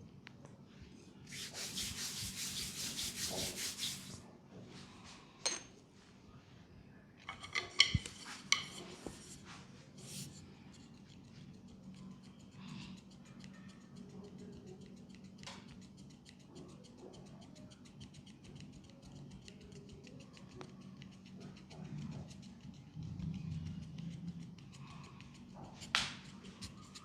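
Hands rubbing fast during a leg massage, a dense run of quick strokes lasting about three seconds near the start. Then come scattered light taps and clicks over a faint steady low hum.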